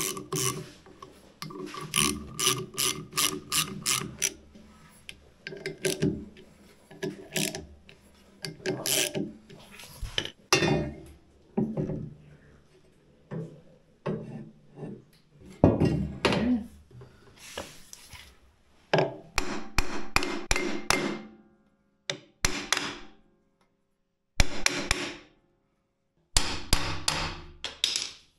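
Ratchet wrench clicking in quick runs of strokes with short pauses between, as the bolts are tightened to draw the motor pulley into its bushing.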